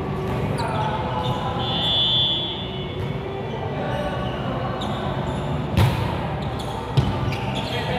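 Volleyball being struck during a rally: a sharp smack about six seconds in and a second one a second later, over the steady hubbub of players' voices in a gym hall.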